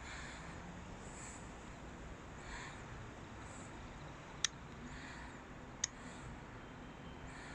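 Faint background hiss with soft, high chirp-like calls recurring about once a second, and two sharp clicks about a second and a half apart a little past the middle.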